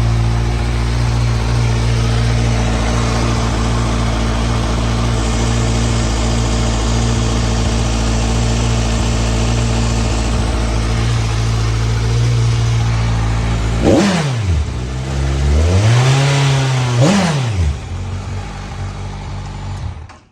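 A 2014 Kawasaki Ninja 1000's inline-four engine idling steadily through its standard exhaust. About two-thirds of the way through the throttle is blipped, and the engine pitch swings up and back down a couple of times before it settles, quieter, near the end.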